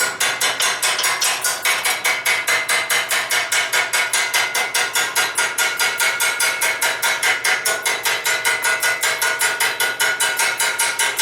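Rapid, even machine hammering on steel, about six blows a second, with a steady metallic ring: tooling being driven into the end of a forged steel bar to form rings.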